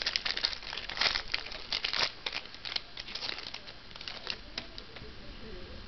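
Foil trading-card pack wrapper crinkling as it is torn open and crumpled. The crackling is dense for about the first three seconds, then comes only now and then.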